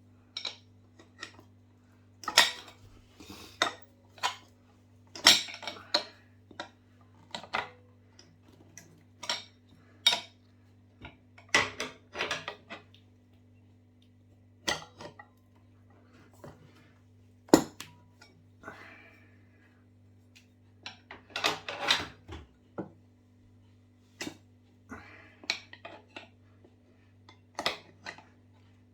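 Irregular metallic clinks, clicks and knocks of tools and metal parts striking the e-scooter's wheel rim as a new tyre is worked onto it, with the loudest knock about two-thirds of the way through. A faint steady hum runs underneath.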